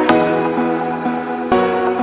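Background music: a calm electronic track with held chords and a sharp beat hit near the start and another about a second and a half in.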